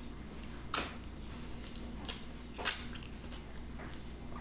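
A man eating a handful of rice and beans by hand, chewing with his mouth open: wet mouth and lip-smacking sounds, with two sharper smacks about a second in and just past halfway.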